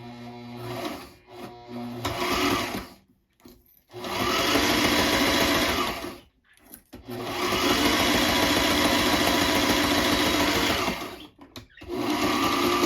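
Sailrite sewing machine stitching a seam in pigskin leather. It runs in bursts, with short stops between: a long run starts about four seconds in, another around the middle, and a third near the end.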